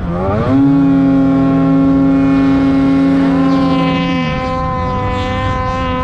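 Snowmobile engine running at high revs under throttle, its pitch dipping and climbing back near the start, then held steady, shifting slightly about three to four seconds in.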